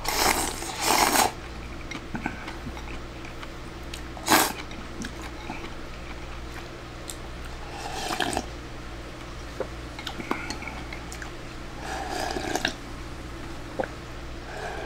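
A person eating from a bowl: a burst of slurping and chopsticks scraping at the start, a sharp clink about four seconds in, then short slurps and gulps while drinking the last of the broth from the tipped bowl.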